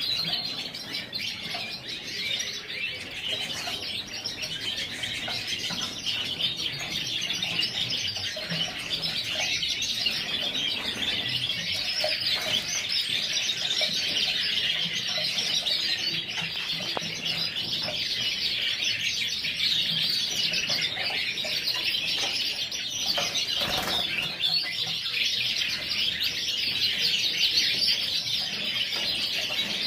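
A flock of Yorkshire canaries chirping and singing without a break, many birds at once, with wings fluttering.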